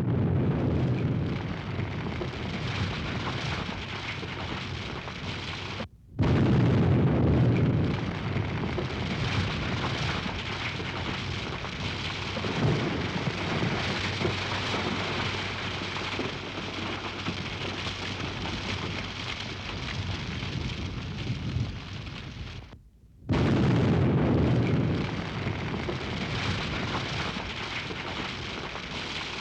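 Three explosions, each starting with a sudden loud boom and a deep rumble, about six seconds in and again about twenty-three seconds in. Each settles into a long steady hissing, crackling roar, and each is cut off by a brief dead silence before the next blast.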